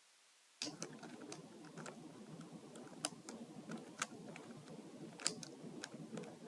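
Rubik's cube being turned and pushed around with the feet: irregular sharp plastic clicks over a steady scuffing rustle, starting about half a second in.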